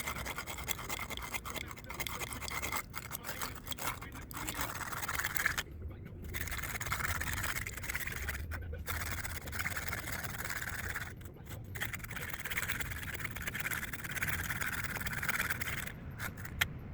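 Brisk, steady scrubbing of gasoline-wetted nuts and bolts with a brush, a scratchy rubbing that breaks off briefly about four times.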